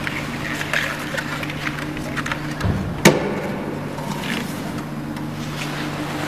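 Handling noises as cables are plugged into a laser marking machine's control box: scattered light clicks and rustles, with one sharp knock about three seconds in. A steady low hum runs underneath.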